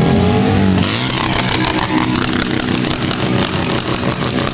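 A sport motorcycle's engine running at high revs during a wheelie. Its pitch drops about a second in, then holds steady.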